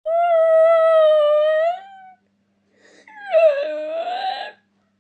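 Aye-aye calling twice: a clear, steady whining call of about two seconds, then after a short pause a rougher call that drops in pitch at its start and wavers for over a second.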